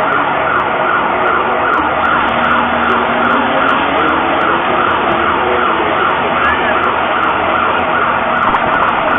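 Mexico City's SASMEX seismic alert siren sounding over the public street loudspeakers: a loud, quickly repeating sweeping tone, warning of an earthquake.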